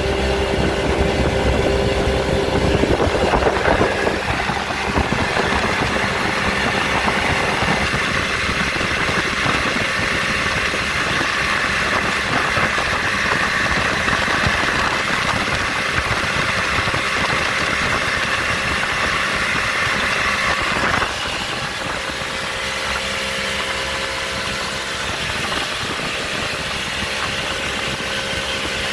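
Mercury 55 outboard motor running a boat under way, with the rush of water along the hull. A few seconds in it picks up to a louder, hissier run at speed, and about 21 seconds in it drops suddenly to a lower, steadier level as the throttle comes back, while the new steering and throttle cables are tried out.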